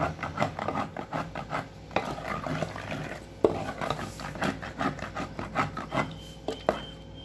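A masher being worked back and forth in a stone pot, churning cooked greens with dal. Quick, rapid rubbing and scraping strokes, with a few sharper knocks against the pot.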